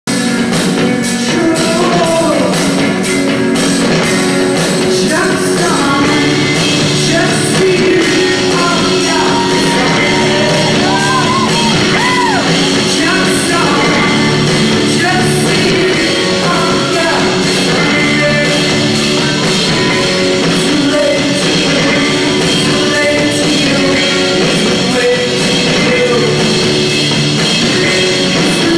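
Live music: a woman singing into a microphone over steady instrumental backing, heard from within the audience in a club.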